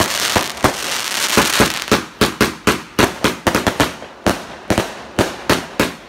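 A 100-shot Aftershock fireworks cake firing. It makes a dense crackle for about two seconds, then a fast run of sharp bangs at about four a second.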